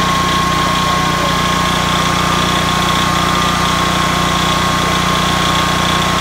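Generac XT8500EFI electronic fuel-injected portable generator running steadily while powering a house's loads, an even drone with a thin high tone over it.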